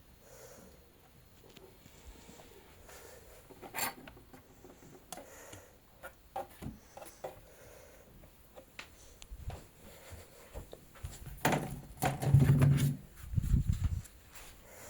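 Handling noises: scattered clicks, knocks and rubbing of objects on a hard surface, with a louder cluster of low thuds near the end.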